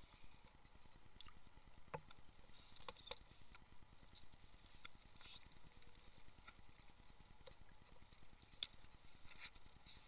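Near silence with scattered faint clicks and ticks, one sharper tick near the end.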